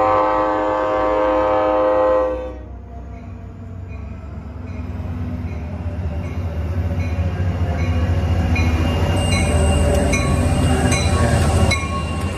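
Train horn sounding a chord of several tones for about two and a half seconds, then a passing train's rumble building up, with regular clicks of wheels over rail joints.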